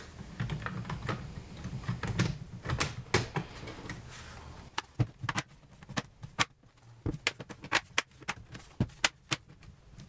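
The plastic bottom housing of an HP 15-bw053od laptop is pressed back onto the chassis. Handling and rubbing of plastic comes first, then a run of irregular sharp clicks in the second half as its clips snap into place.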